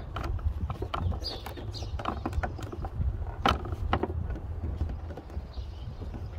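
Hands working a cable along a boat's gunwale: irregular knocks, clicks and rustles as the cable is pulled and pressed against the rail, over a low steady rumble.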